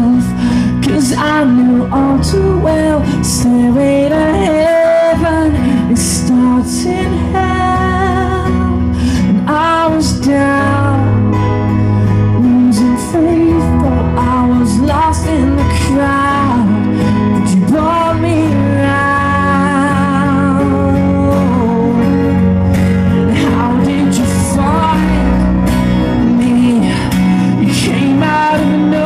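Live acoustic guitar strumming with sung vocal lines, amplified through a stage PA.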